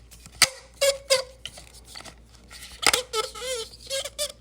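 Plastic foam cannon being handled and its adjustment knob turned: a few sharp clicks, the loudest about half a second in and near the three-second mark, with short squeaks between them.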